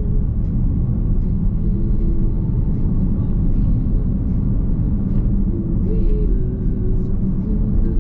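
Nissan X-Trail Hybrid driving on the road, heard inside the cabin: a steady, loud low rumble of road and tyre noise.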